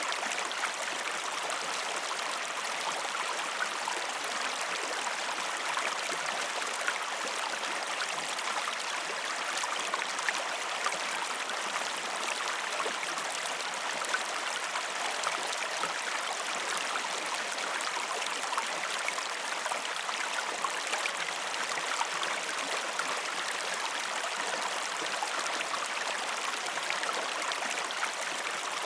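A river flowing steadily over stones: an even rushing with fine, quick splashes and gurgles running through it.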